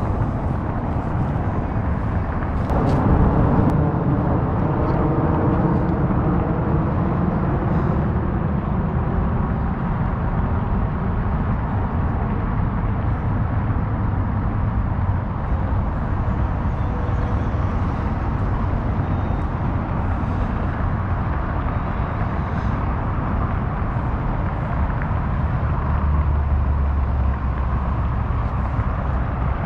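Wind rushing over a GoPro's microphone, with road rumble, while riding an electric scooter: a steady low rumble that swells about three seconds in and again near the end. A fainter hum falls slowly in pitch over the first ten seconds.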